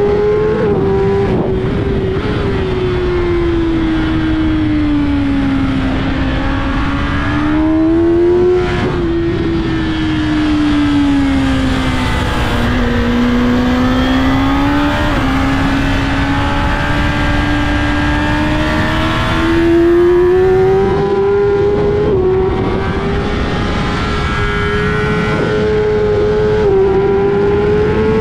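Kawasaki ZX-10R inline-four engine at race pace on track, its note falling and climbing several times through the corners with a few brief dips at gear changes, over steady wind rush.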